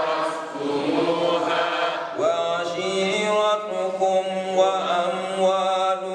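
Chanted Islamic recitation in long, drawn-out melodic notes. A new phrase begins about two seconds in.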